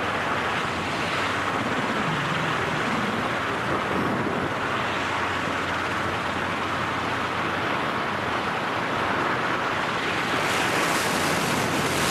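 Steady rush of wind over a camera microphone in skydiving freefall.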